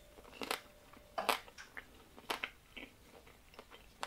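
A man chewing a mouthful of baked cannelloni stuffed with cevapcici meat, feta paste and cheese, with his mouth closed. There are a few short, irregular chewing noises, fairly faint.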